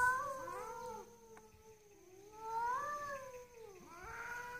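Two cats caterwauling at each other: long, drawn-out yowls that waver and slide up and down in pitch, loudest at the start and again about three seconds in.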